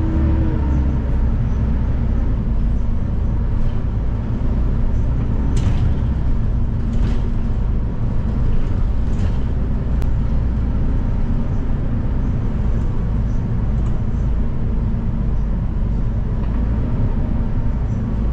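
City bus engine and drivetrain running steadily, heard from inside the cabin at the back seat, with a constant low drone and hum. A few faint clicks or rattles come through in the middle.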